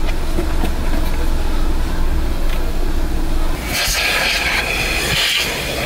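Car-wash vacuum running with a steady low drone. About halfway through, a louder, higher hiss of rushing air takes over.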